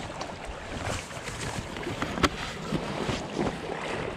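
Rushing shallow river water with splashing from a hooked chub being fought close in, and a sharp knock about two seconds in.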